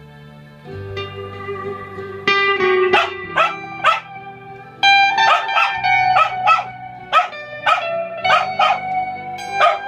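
Electric guitar chords ringing out through a Vox amplifier while a curly white dog barks along in a dozen or so short, sharp barks, starting about three seconds in, sometimes two a second.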